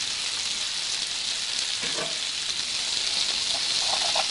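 Diced onion sizzling in hot sunflower oil in a frying pan, a steady hiss. Near the end a utensil stirs the onion with a run of short scrapes against the pan.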